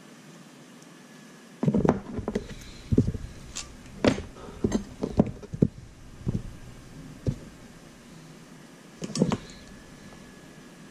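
Small hand tools and shock parts being handled and set down on a table: a couple of seconds in, a run of irregular clicks and knocks that lasts a few seconds, then a single short cluster near the end.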